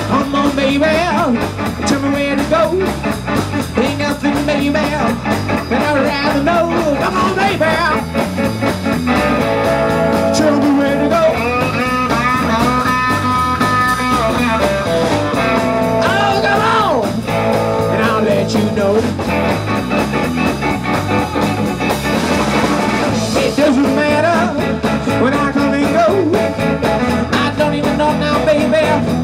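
Live blues band playing an instrumental passage: a lead line bends and holds notes over a steady beat.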